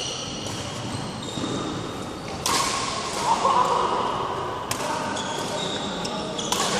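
Badminton rally: three sharp racket strikes on the shuttlecock, about two seconds apart, each echoing in the hall, with short high squeaks from shoes on the court floor in between.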